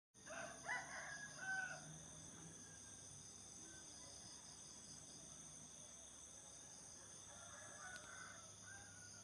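Roosters crowing: one loud crow in the first two seconds and a fainter crow near the end, over a steady high drone of insects.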